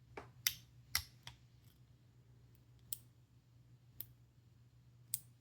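Sharp metallic clicks from lock picks working the pin stack of a six-pin American Lock 1100 padlock during picking: a quick cluster of four, then single clicks a second or so apart. A faint steady low hum runs underneath.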